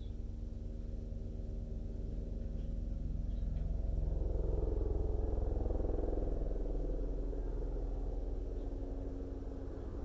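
A low rumble that swells and fades over several seconds, like a vehicle passing at a distance, over a steady low hum, with a few faint high chirps.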